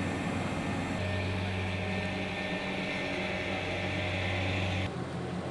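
Steady machinery drone of aircraft on the ramp, a low hum under a high whine. It gets louder about a second in, and the whine cuts off sharply near the end.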